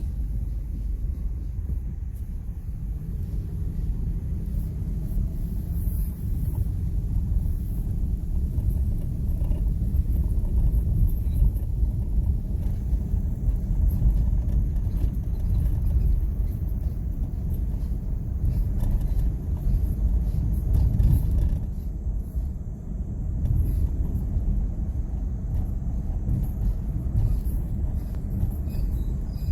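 A 2001 Ford F-150 engine running, with its sound sitting low and continuing without a break. The seller lists the engine as having a misfire.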